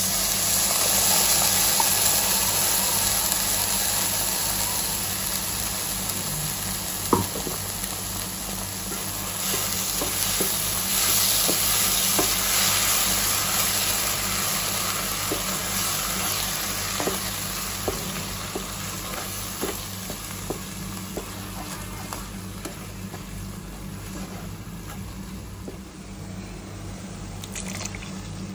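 Tomato purée sizzling loudly as it hits a hot non-stick pan of fried onion masala, while a spoon scrapes and taps on the pan as it is stirred in. There is one sharper knock about seven seconds in, and the sizzle slowly dies down as the purée cooks. Near the end a little water is poured into the pan.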